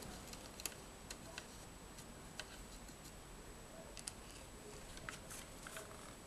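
Faint, scattered small clicks and ticks as a screwdriver turns out a small screw from the metal case of a homemade cassette player, then as the case is picked up and handled, over a low steady hiss.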